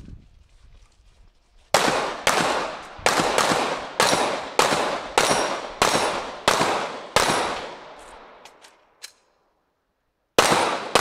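A string of about ten gunshots fired in quick succession, roughly two a second, each with a short echo tail, as targets are engaged on a 3-Gun competition stage. A few faint clicks follow, then a pause and one more shot near the end.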